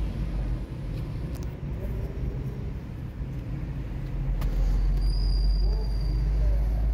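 Low, steady engine rumble, like a motor vehicle running nearby, growing louder about four and a half seconds in. A brief thin high tone sounds near the end.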